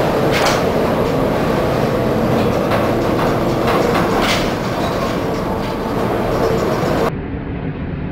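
Steady rumbling and rattling inside a ship's bridge as the ship rolls heavily in a storm, with sharp knocks every second or two. About seven seconds in it gives way to a duller, quieter rush of storm wind and sea.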